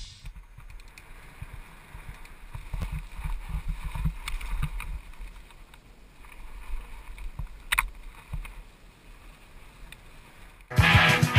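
Mountain bike rolling fast down a dry dirt trail, heard through an on-board action camera: a low, irregular rumble of knocks and jolts as the tyres and frame bounce over bumps, with wind noise and a sharp rattle about eight seconds in. Rock music cuts back in near the end.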